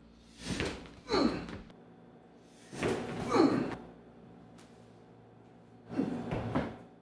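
Kung fu strikes delivered on a partner with sharp, forceful exhalations: three quick flurries of two blows each, about three seconds apart.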